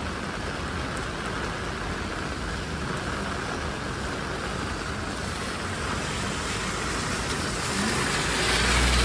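Heavy rain pouring onto a city street, with traffic moving over the wet road. Near the end a car passes close and its low engine rumble and wet-road noise swell up over the rain.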